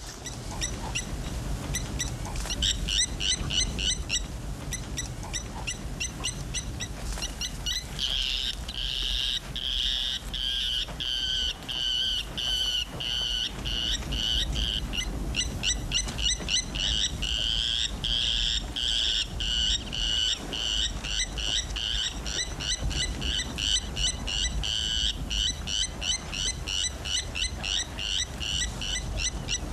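Outdoor wildlife ambience: fast, repeated high-pitched chirping, about three calls a second, faint at first and much stronger from about eight seconds in, over a low steady rumble.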